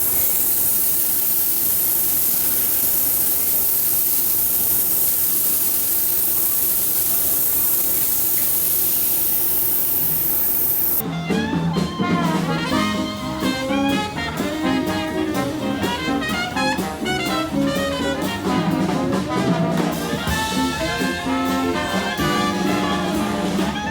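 A steady, loud rushing hiss for about eleven seconds, then a sudden cut to lively brass-band jazz with melody lines moving over a bass.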